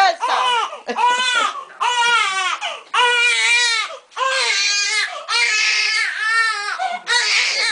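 Baby crying hard in a run of wails about a second apart, each rising and falling in pitch, at bath time, which he dislikes.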